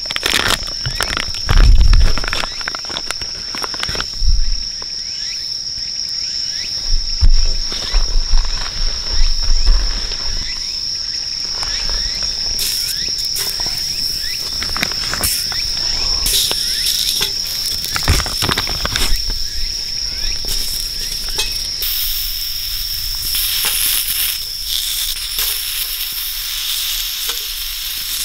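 Plastic packaging rustled and handled, with scattered clicks and soft thumps, then from about two-thirds of the way through, skewered sausages sizzling on a grill plate over a campfire. A steady high insect trill runs underneath throughout.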